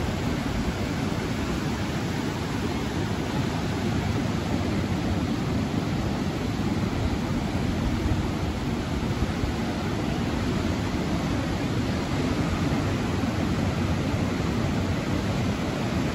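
Steady, even rush of Pacific Ocean surf breaking on the beach.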